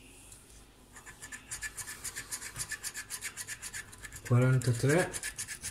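Scratch card's scratch-off coating being scraped away in rapid strokes, several a second, starting about a second in.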